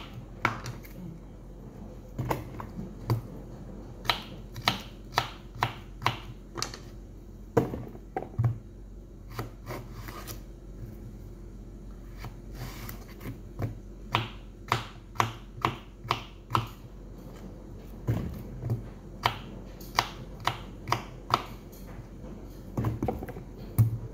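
Kitchen knife cutting through a zucchini and knocking on a wooden cutting board, a sharp knock with each slice. The slices come in runs of quick cuts with short pauses between.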